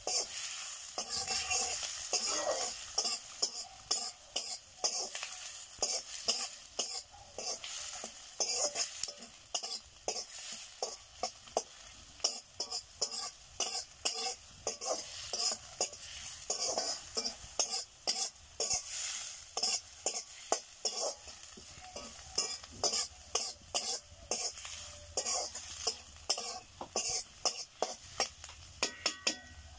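Sliced onions sizzling in hot oil in an iron kadai, stirred with a wooden spatula that scrapes and knocks against the pan in quick, irregular strokes.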